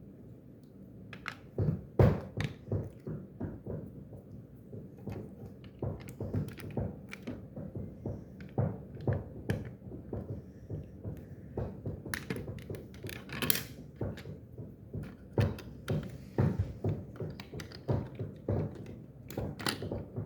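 Lego pieces and minifigures being handled and set down: irregular plastic knocks and taps, a few sharper clicks among them.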